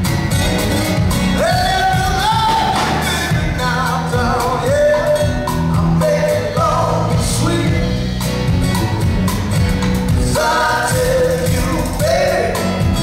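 Live band with male lead vocals over acoustic guitars and drums, a sung melody sliding between notes on a steady beat.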